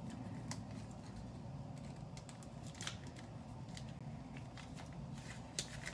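Faint, scattered clicks and light rustling from handling a packet of feta cheese and emptying it into a mixing bowl, over a steady low hum.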